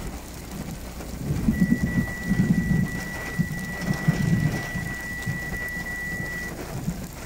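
Heavy rain pouring down onto a road and hillside, a steady hiss, with low rumbling surges between about one and four and a half seconds in.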